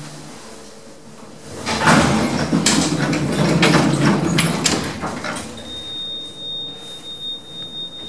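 Lift's sliding doors running along their track, rumbling and rattling with a few knocks for about three seconds. A steady high-pitched beep then starts and holds.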